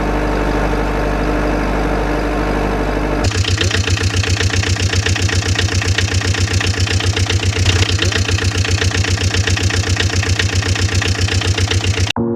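Vehicle engine running steadily, then from about three seconds in a fast, regular diesel-style chugging that cuts off suddenly near the end.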